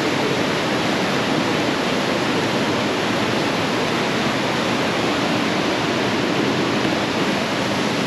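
Steady rush of falling water from a waterfall, an even unbroken noise at constant strength.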